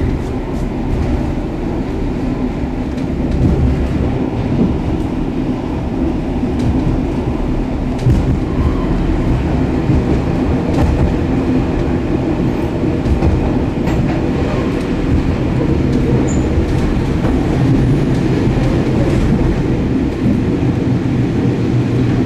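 Ride noise inside a DB n-Wagen passenger coach running at speed: a steady rumble of wheels on rails with scattered clicks from the track.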